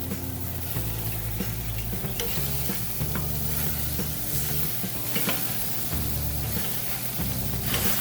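Ribeye steaks sizzling and crackling on a very hot steel griddle grate over charcoal, in a steady high hiss. Background music with a stepping bass line plays underneath.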